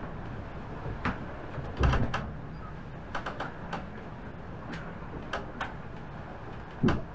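Irregular clicks and knocks, like doors or hatches being handled, over a steady low rumble; a heavier thump about two seconds in and another near the end, with a quick run of clicks in between.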